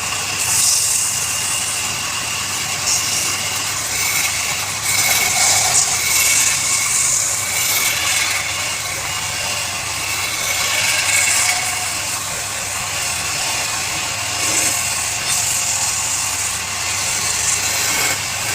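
Wood lathe running while a turning tool cuts the spinning wood: a steady hissing scrape over a low motor hum.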